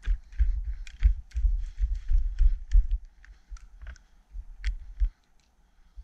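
Footsteps in snow through brushy cover, with branches brushing and twigs snapping. The steps come as uneven low thumps, heaviest in the first three seconds and dying away about five seconds in.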